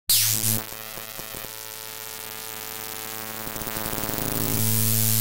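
Synthesized intro sting for a channel logo: a quick whoosh, then sustained synth tones that swell steadily louder toward the end.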